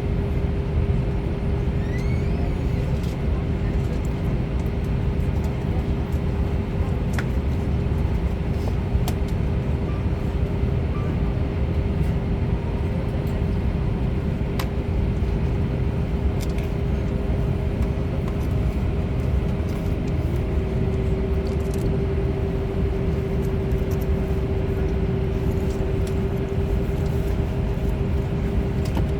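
Steady airport apron noise: a low engine rumble with a constant mid-pitched whine from the airstairs vehicle and the aircraft nearby. The whine steps up slightly in pitch about twenty seconds in.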